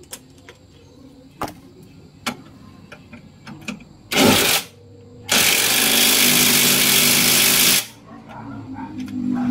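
Bauher cordless impact wrench running on a bolt under the car: a short burst about four seconds in, then a longer run of about two and a half seconds. A few light metal clicks come before it.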